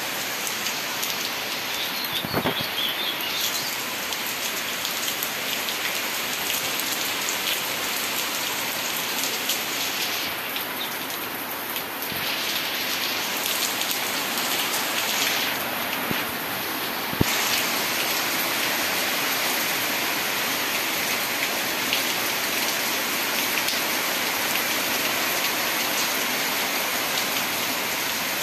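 Steady rain falling on clay-tiled roofs and the yard, an even hiss of drops. A single sharp tick stands out about seventeen seconds in.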